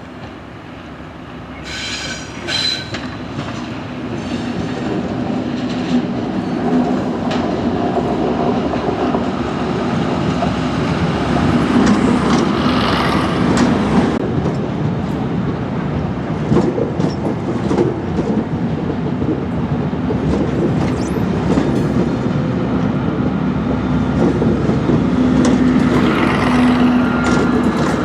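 A train running through, with rail clatter and a steady engine hum. It grows louder over the first few seconds, and a thin high tone appears near the end.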